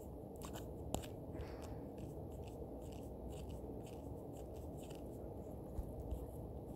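Faint, scattered taps and light scratching of drawing on a phone touchscreen over a steady low hiss, with one sharper click about a second in.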